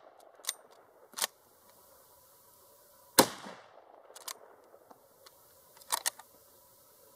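A single rifle shot from a Winchester Model 88 lever-action carbine in .308, about three seconds in, with a short echo tail. Before and after it come the sharper metallic clicks of the lever action being worked to eject and chamber a round: two before the shot, and two more after it, the last a quick pair.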